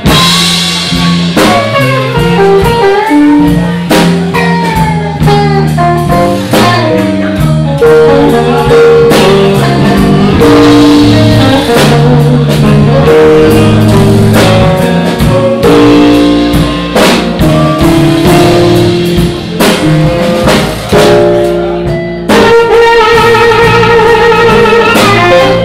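Live blues band playing a slow blues, with electric guitar out front over drums. The recording is loud and overloaded because the recorder's mic gain was set too high.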